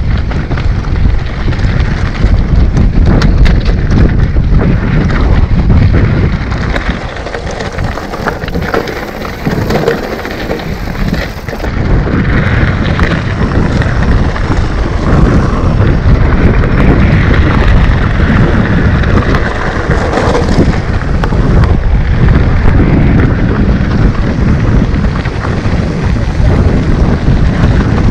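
Mountain bike descending a rocky dirt trail heard from a rider-mounted action camera: wind buffeting the microphone over the rumble of the tyres on loose stone, with frequent clicks and knocks from the bike rattling over rocks. It eases off briefly about a quarter of the way in.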